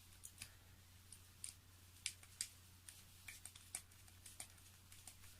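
Faint, irregular small clicks and ticks of a hand driver turning and seating the nitro engine's mount screws as they are tightened.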